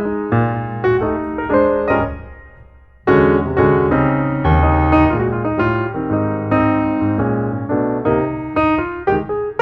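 Background piano music, notes played in phrases; it dies away about two seconds in and a new phrase starts about a second later.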